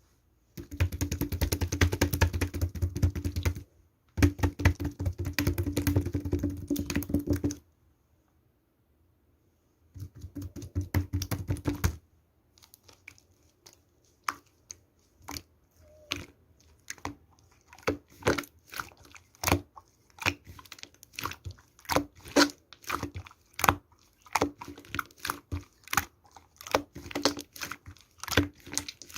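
Clicking key taps like typing on a keyboard: three dense runs of rapid clicks a few seconds each, then slower, irregular single taps.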